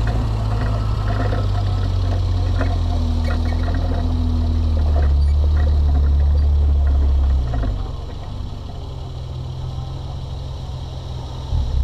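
V8 engine of a stock 2009 GMC Yukon XL running as the truck rolls slowly along a dirt trail. It gets a little louder about halfway, then eases off and drops to a lower, quieter note. Scattered light clicks and rattles come through in the first few seconds.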